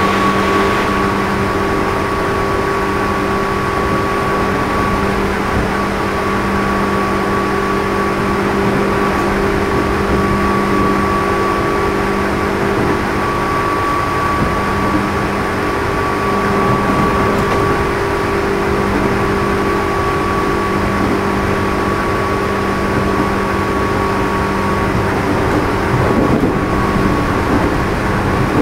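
JR East 211 series motor car's traction motor and externally fanned cooling fan heard from inside the car at a steady speed: a constant hum with a steady whine that holds its pitch, over wheel-on-rail rumble. This car, MoHa 211-1, is known for an unusual motor noise.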